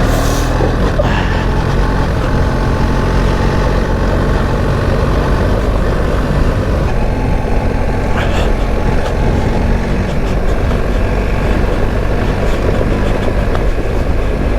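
BMW R 1300 GS Adventure's boxer twin engine running steadily as the motorcycle rides along a trail, with a couple of brief clicks along the way.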